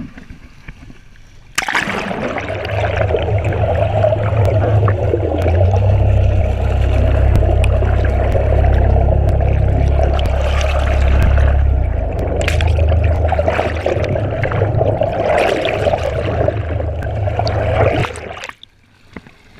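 Underwater rush and bubbling of churning sea water, heard by a camera plunged below the surface beside a boat's hull, with a heavy low rumble. It starts abruptly about two seconds in, when the camera goes under, and cuts off abruptly near the end, when it comes back out.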